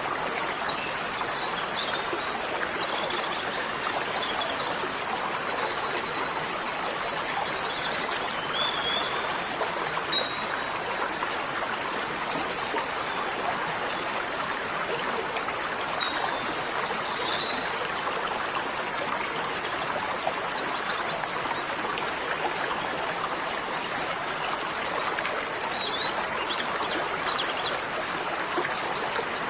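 Steady rushing of flowing water, like a stream, with birds chirping now and then over it.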